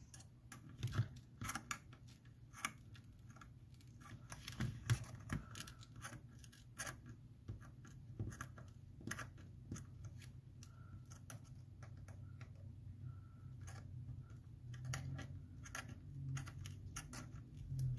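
Faint, irregular clicks and scrapes of a tool working against an iPhone 8 Plus's battery and housing, prying out a battery held by stubborn adhesive.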